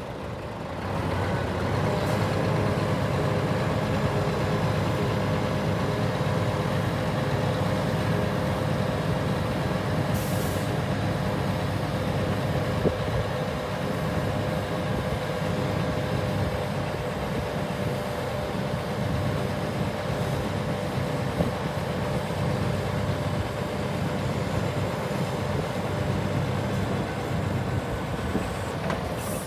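Scania P420 hooklift truck's diesel engine running with its hydraulic pump driving the hook arm back and out: a steady low hum with a steady tone above it, coming up about a second in.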